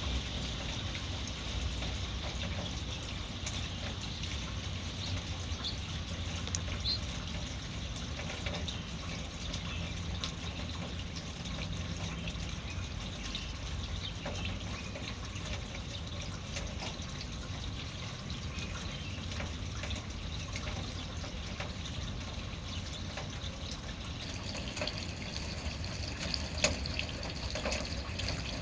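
Rainwater dripping and trickling into puddles: a steady wash of running water with many small scattered drips.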